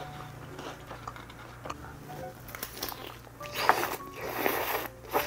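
Biting into crispy breaded Korean fried chicken: a few loud crunches in the last two seconds, with chewing, over faint background music.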